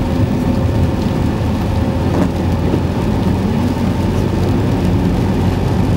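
Steady rumble inside a moving car's cabin: engine and tyres running on a wet road.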